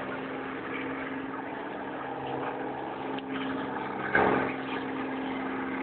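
Helicopter running steadily as it lifts off and departs, its rotor and engine giving a constant droning hum. About four seconds in there is a brief loud burst.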